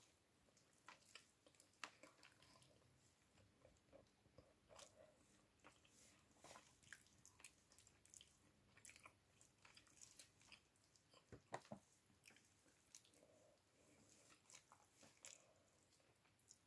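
Faint eating sounds of a person chewing chicken and rice eaten by hand: soft, irregular mouth clicks and smacks, with two sharper clicks about two-thirds of the way through.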